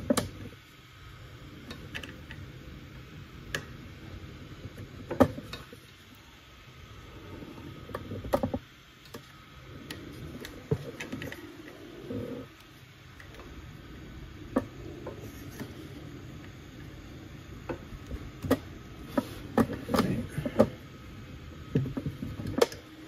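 3D-printed ABS plastic parts being fitted together by hand: scattered light clicks and knocks of plastic on plastic over soft handling rustle, coming more often in the last few seconds.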